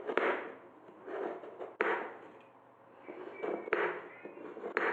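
A kitchen knife slicing a block of palm sugar on a cutting board: scratchy cutting strokes with a few sharp knocks of the blade against the board at uneven intervals.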